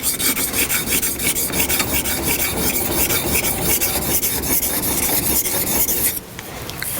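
Sharpening stone on a TSPROF guided sharpener scraping along a scissor blade's edge in rapid, even back-and-forth strokes, grinding in a new bevel on a dull blade. The strokes stop about six seconds in.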